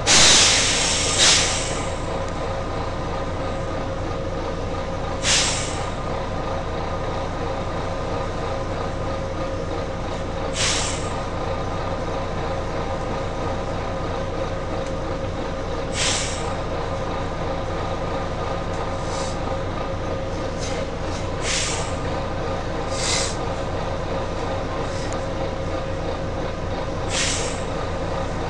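Volvo B9TL bus's compressed-air system giving repeated short hisses over the steady hum of its idling diesel engine. A long, loud hiss comes at the start, then single hisses about every five seconds, and a cluster of smaller, quicker ones later on.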